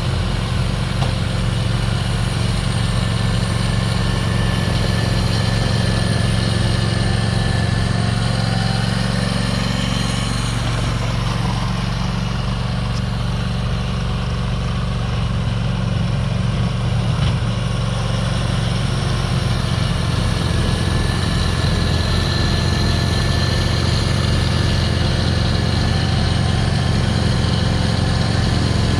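Snowblower engine running steadily at a constant speed while clearing snow.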